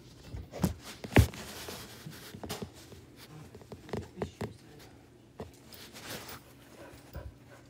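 Scattered close knocks and taps with some rustling between them; the loudest is a sharp knock about a second in.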